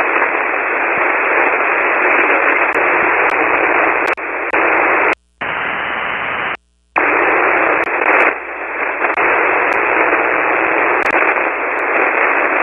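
Shortwave SSB receiver on the 40-metre band putting out steady band-noise hiss and static, with scattered static clicks and two brief cut-outs to silence about five and seven seconds in. The station being called is lost in the noise and cannot be copied; the operator blames poor band conditions.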